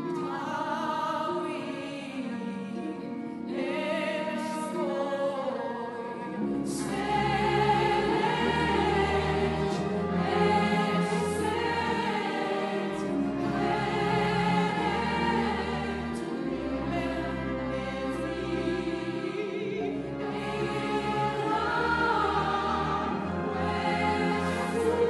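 Orchestral music with a choir singing in an operatic style; deep, sustained bass notes come in about six seconds in.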